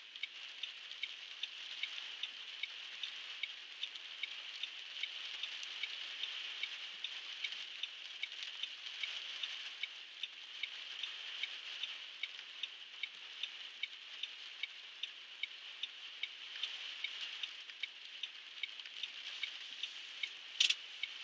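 Steady hiss of heavy rain on a car's roof and windscreen, heard from inside the cabin, with the car's indicator ticking evenly throughout. One sharper click sounds near the end.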